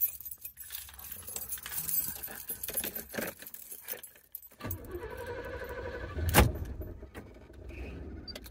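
Car keys jangling, then about halfway through the Oldsmobile Cutlass Supreme's starter cranks with a steady whine for about a second and a half. The engine catches with a loud burst and settles into a steady idle. This is the first start after the engine computer was reset by disconnecting it.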